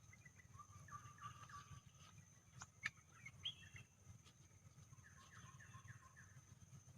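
Faint bird calls: short series of chirps about a second in and again around five seconds in, with a sharp click just under three seconds in, over a steady low hum.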